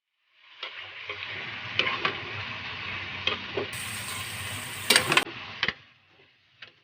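Food sizzling in a hot frying pan while being stirred, with sharp knocks and scrapes of the cooking utensil against the pan; the loudest knocks come in a cluster about five seconds in. The sizzle starts about half a second in and stops suddenly near six seconds.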